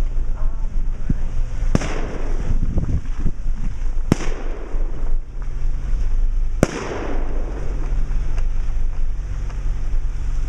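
Three sharp bangs about two and a half seconds apart, each with a ringing tail, over the steady low hum of a Subaru Outback's engine.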